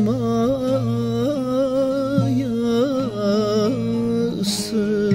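Bağlama (Turkish long-necked saz) playing a folk melody under a man's voice holding long, ornamented, wavering notes.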